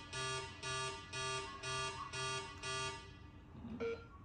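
Card-swipe meal-confirmation system sounding a buzzing alarm beep about twice a second, its rejection signal for an unregistered card. The beeping stops about three seconds in, and a single short beep follows near the end as a card is read.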